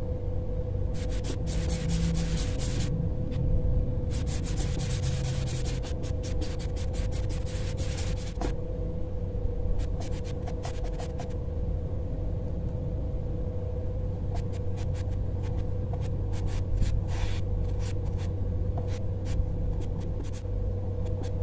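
Paintbrush scrubbing oil paint onto sketchbook paper in runs of short strokes, with pauses between, over a steady low hum.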